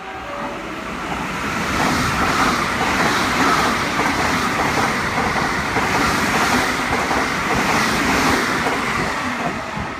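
JR West electric train passing through a station at speed without stopping. The noise of wheels on rail and rushing air builds over the first two seconds, holds steady as the cars go by, and eases slightly near the end.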